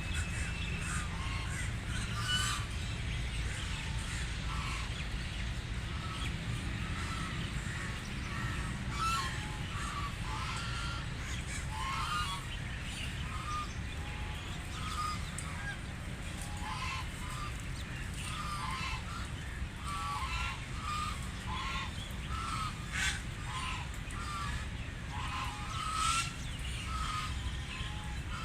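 A flock of wild ducks quacking continually, many short calls overlapping, over a steady low background rumble.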